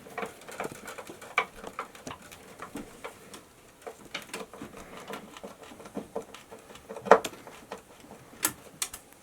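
Screws being driven through a junction box into plywood backing: scattered small clicks and scrapes from the screwdriver and box, with one sharper knock about seven seconds in.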